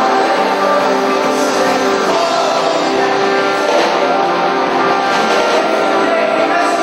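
Live band music with a Les Paul-style electric guitar playing, loud and steady throughout.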